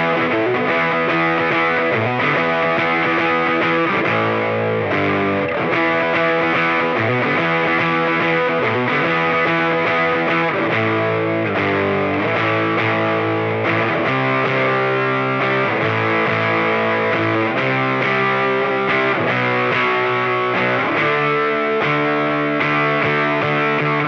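Solid-body electric guitar (Gibson SG) played through a distortion/overdrive pedal into a small Fender Champ tube amp, ringing out chords in a riff that changes every second or so with a gritty, saturated tone.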